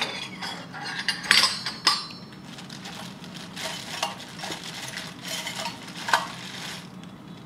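Small stainless steel toy pots and lids clinking against each other as they are handled and set down, with a clear plastic bag crinkling. A few sharp clinks stand out, the loudest right at the start and about one and a half to two seconds in, with another about six seconds in.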